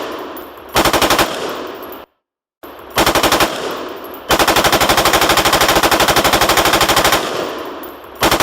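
Automatic gunfire sound effect: bursts of rapid fire at about fifteen shots a second, including one long burst of about three seconds, each burst trailing off in a fading echo. There is a half-second gap of dead silence about two seconds in.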